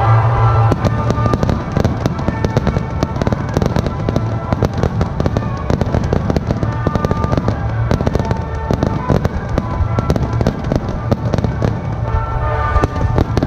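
A rapid, dense barrage of fireworks: many shells and ground-fired effects bursting in quick succession, a near-continuous run of bangs and crackling that sets in under a second in. Music plays underneath.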